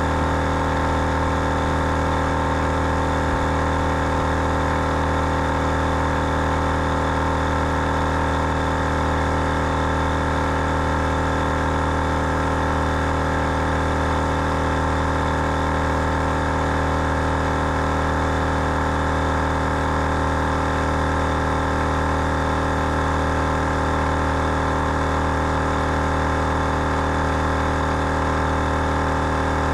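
Big Red Gear twin-head air compressor running steadily under load, a constant motor hum, while it inflates four 4x4 tyres at once through a four-way inflation kit.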